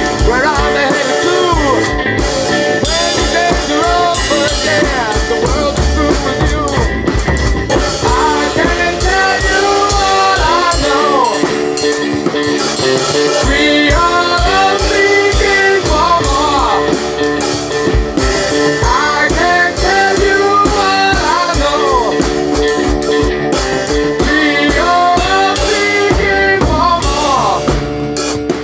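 A drum kit being played along with a song that has singing and guitar, the drums beating a steady rhythm under the voice.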